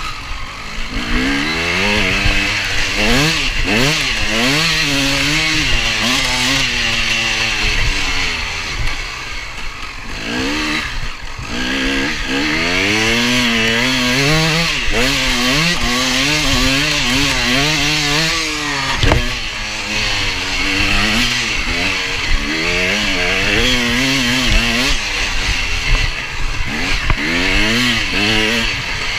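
KTM 250 EXC enduro motorcycle engine heard from on board, revving up and falling back over and over as it accelerates and shifts round the track. The revs drop briefly about ten seconds in and again about nineteen seconds in, with a few knocks from the bike over bumps.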